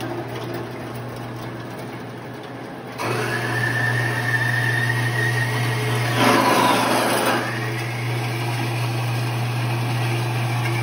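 Horizontal metal-cutting bandsaw running with its blade cutting through steel at a 45-degree angle. The motor hum is steady and grows louder about three seconds in, when a high whine from the blade in the cut joins it, with a brief harsher rasp around six seconds in.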